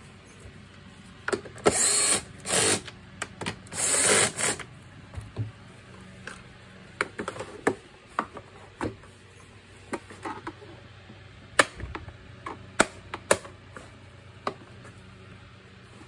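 Plastic housing of an Electrolux JetMaxx vacuum cleaner handled by gloved hands: two rasping scrapes of plastic on plastic in the first few seconds, then scattered clicks and knocks as the body is turned over.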